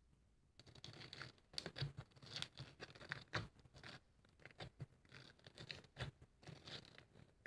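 Faint, irregular close-up rustling, scratching and crackling of something being handled, starting about half a second in.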